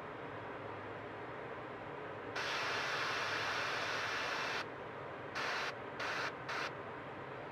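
Airbrush spraying paint in short triggered bursts: one hiss of about two seconds, then three short puffs, as small dots are sprayed onto a soft plastic bait.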